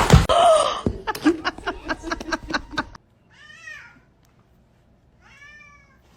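A cat meows twice, two separate drawn-out meows that rise and fall in pitch, about two seconds apart. Before them, a loud rapid pulsing sound runs for about three seconds and then cuts off suddenly.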